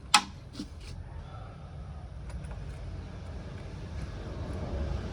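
A sharp knock just after the start and two lighter clicks, then a steady low rumble of a motor vehicle that grows slightly louder near the end.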